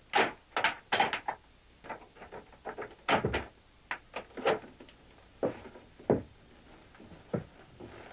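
An apartment door's locks being worked: a run of short metal clicks and rattles from the knob, deadbolt and chain, with a heavier thump about three seconds in.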